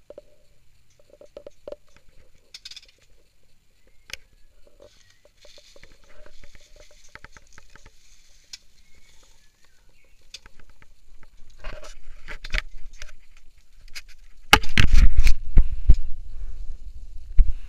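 Dry, fibrous nest material rustling, crackling and scraping as a hand pulls it out of a wooden nest box. Near the end there is loud bumping and rumbling close to the microphone.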